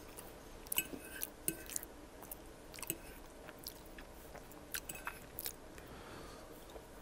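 Close-miked chewing of poutine made with shoestring fries that came out soft rather than crispy, with small wet mouth clicks scattered throughout. In the second half a fork gathers more fries from the ceramic plate.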